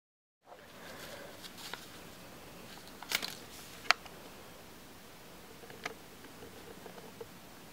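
Origami paper spinning top spinning on a hardwood floor: faint steady room hiss with scattered light taps and clicks, the sharpest about four seconds in.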